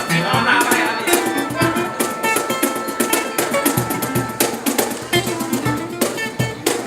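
A band playing, with a plucked string instrument over drums and percussion keeping a steady beat.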